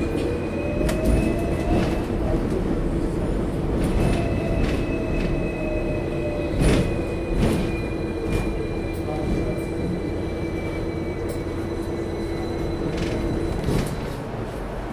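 Hong Kong double-decker electric tram running on street track, heard from on board: a steady hum with several irregular clunks from the wheels on the rails. A faint high squeal rises and falls above it, and the hum cuts off shortly before the end.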